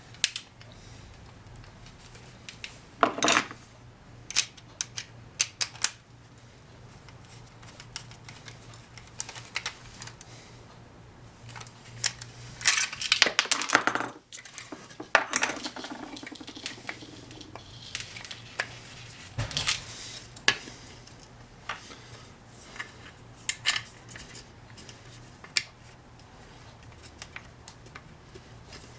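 Scattered metallic clicks and clinks of small hardware and hand tools being handled while fitting bolts to a motorcycle turn-signal mount, with a busier run of rattling about halfway through.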